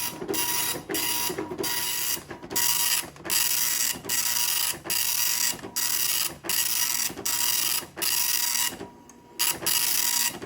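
C. Itoh 8510 (Apple Dot Matrix Printer) 9-pin dot matrix printer printing: a buzzing rasp of the print head for each pass across the paper, repeated about once every 0.8 s with short breaks between lines and a longer pause near the end.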